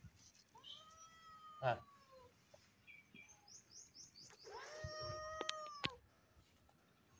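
A tabby cat meows twice: first a call that rises and falls, then about three seconds later a longer, steadier meow. Between the two meows a bird gives a quick run of high chirps, and a sharp click lands in the middle of the first meow.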